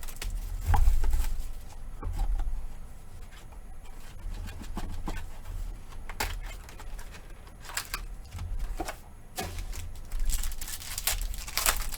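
Hands opening a box of trading cards and its packs: irregular crackling and rustling of wrapper and cardboard, with scattered taps and knocks.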